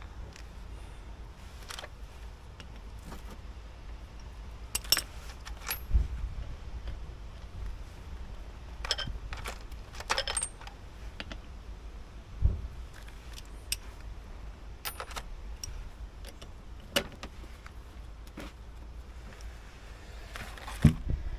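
Scattered metallic clinks and clatters of hand tools and small metal brake parts being picked up and set down, some ringing briefly, over a low steady hum.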